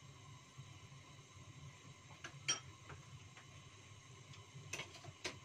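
A few light clicks of a metal utensil against a stainless steel cooking pot: one sharp click about halfway through and a quick cluster of two or three near the end, over a low steady hum.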